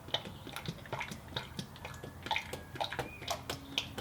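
Fresh engine oil being poured from a bottle through a funnel into the engine's oil filler, glugging with irregular small clicks, several a second.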